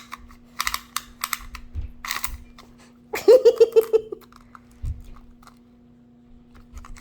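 Scattered light clicks and short rattles from a small retractable sewing tape measure being handled. A little past three seconds in, a quick run of about seven high-pitched pulses sounds, like a short giggle.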